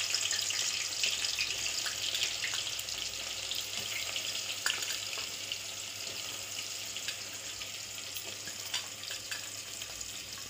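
Sliced onions sizzling in hot oil in a pressure cooker, a dense hiss with scattered pops that slowly eases as the onions settle in the oil.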